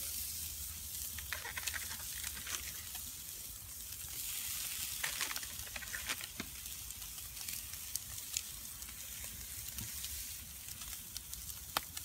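Rashers of bacon sizzling on a wire grill over glowing campfire embers: a steady hiss with scattered small pops and crackles.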